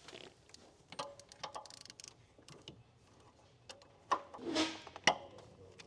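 Hand tools working on a tight fuel line fitting on a 6.7L Powerstroke diesel engine: scattered metal clicks and clinks, a louder scraping stretch about four seconds in, and a sharp knock about a second later.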